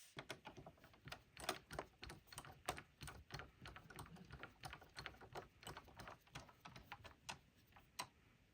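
Faint, irregular small clicks and taps, several a second, of the PS5's M.2 expansion-slot cover plate and its screw being handled and fitted back in place.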